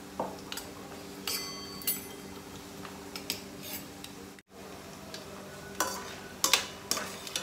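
A metal spoon clinking and scraping against a dish in irregular short strikes, some ringing briefly, over a steady low hum.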